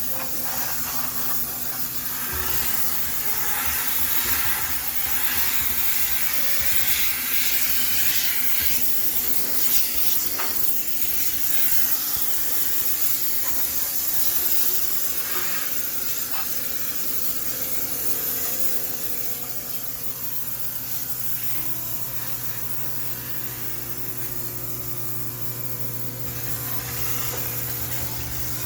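High-pressure steam cleaner jetting steam into a washing machine, a steady loud hiss. In the last third the hiss eases and a low steady hum carries on beneath it.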